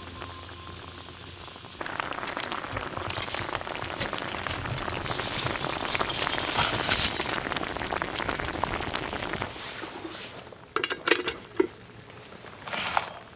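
Food sizzling and bubbling in a hot pot, swelling for a few seconds and then dying down, followed by several clinks of metal cookware.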